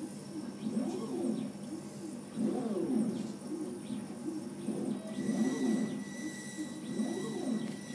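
Laser cutter's gantry stepper motors whining as the cutting head moves about, the pitch rising and falling with each move, over a steady low hum.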